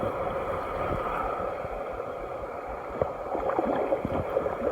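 Creek water flowing and gurgling, with a few faint knocks about three seconds in and near the end.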